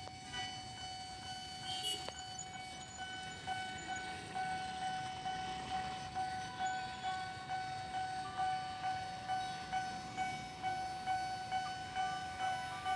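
An electric commuter train (KRL) passing at a level crossing, over a steady high tone. In the second half, rhythmic wheel beats of about one every 0.6 s grow stronger as the train comes through.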